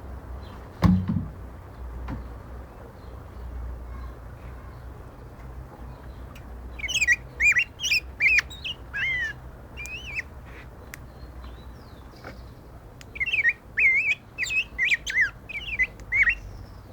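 Black-backed grosbeak (rey del bosque) singing: two phrases of quick, rich warbling notes, the first about seven seconds in and the second about thirteen seconds in. A dull thump comes about a second in.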